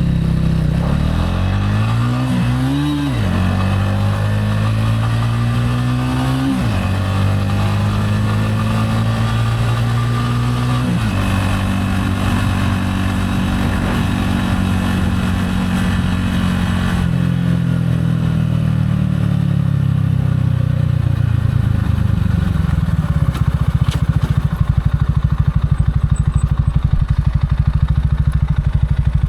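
Gilera AC4 motorcycle engine pulling hard. Its pitch rises twice and drops sharply each time as it shifts up, then it holds steady. Next its pitch slides slowly down as the bike slows, settling to a low, steady idle for the last several seconds.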